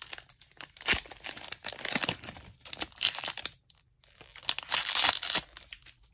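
Foil wrapper of a Pokémon Rebel Clash booster pack being torn open and crinkled as the cards are pulled out: runs of sharp crackles and rips, with a louder burst about five seconds in.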